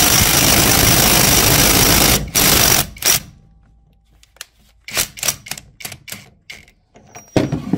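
Dowox stubby cordless impact wrench hammering under load on a Skidmore-Wilhelm bolt tester, with a brief break just after two seconds in, then stopping about three seconds in. Afterwards come scattered clicks and knocks as the tool is handled.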